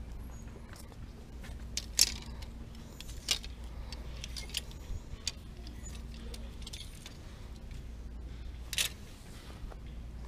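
Clothes hangers clicking and scraping along a metal clothing rack as garments are pushed aside, with a few sharp clinks, the loudest about two seconds in and near the end, over a steady low hum.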